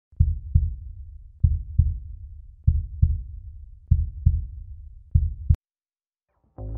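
Heartbeat sound: five lub-dub pairs of low thumps, about one pair every second and a quarter, cutting off suddenly about five and a half seconds in.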